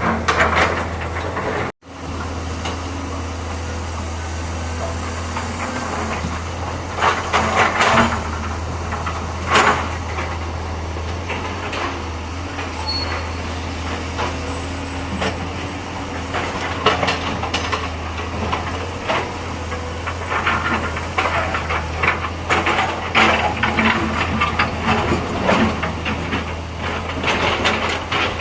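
Hydraulic excavator's diesel engine running steadily, with scattered knocks and clatter from the machine working. The sound cuts out briefly about two seconds in.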